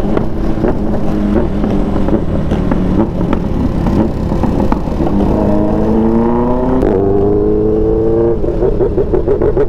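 Motorcycle engine running at road speed, heard from the rider's seat. About five seconds in it revs up, drops in pitch with a gear change near seven seconds, then pulls on again.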